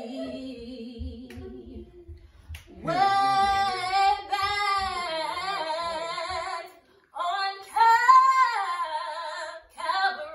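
Women singing a gospel hymn a cappella. A low held note comes first, then a louder, higher voice with a wavering, vibrato-like pitch comes in about three seconds in, pauses briefly near seven seconds, and rises again.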